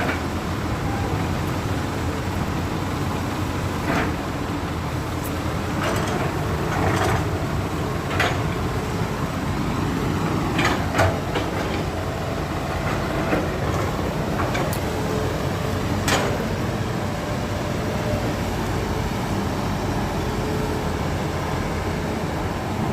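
Heavy diesel excavator running steadily while it digs, with scattered sharp metallic clanks about a dozen times, closest together around the middle.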